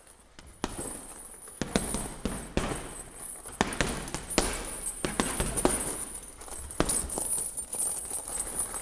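Boxing gloves punching a heavy bag: a string of irregular thuds, roughly one or two a second, starting about half a second in. A faint steady high-pitched whine runs underneath.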